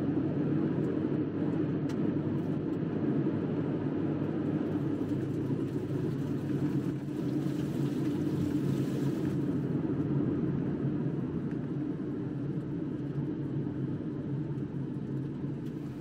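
Car driving along a road, heard from inside the cabin: a steady, low engine and tyre rumble.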